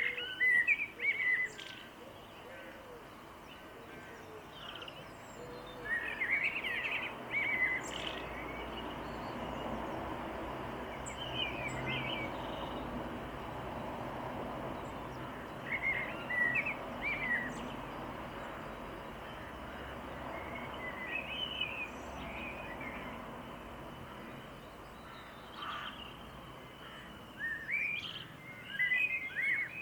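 Small garden birds singing in short chirping phrases every few seconds, over a steady outdoor background rumble that grows louder through the middle stretch.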